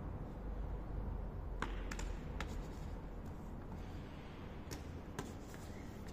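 Several scattered sharp taps and thuds of hands and feet striking the floor during cartwheel practice, over a steady low background rumble.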